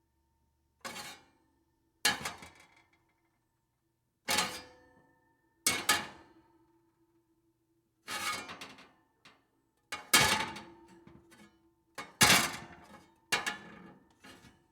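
Metal oven pans being put into an oven: a series of separate clanks, about ten in all, at uneven intervals, each with a short metallic ring. The clanks come closer together in the second half.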